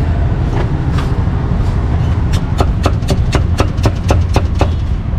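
Steel meat cleaver chopping roast meat on a thick round wooden chopping block: a few scattered chops, then from about two seconds in a fast run of about five or six chops a second until near the end. A steady low rumble runs underneath.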